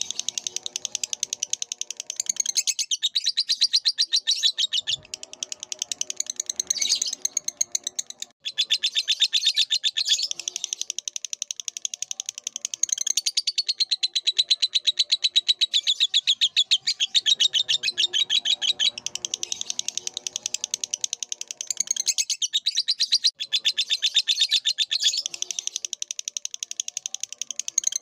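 Lovebird singing a long, rapid chattering song of high chirps, with two brief pauses.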